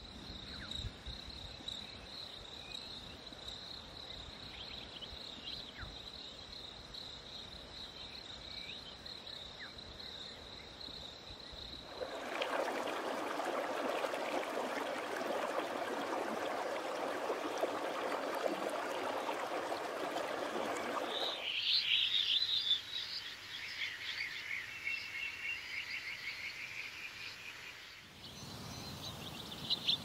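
Tropical forest ambience that changes abruptly twice. First comes a steady high insect trill. About twelve seconds in it gives way to a louder, dense wash of animal chorus, and after about twenty-one seconds to birds calling with short chirps.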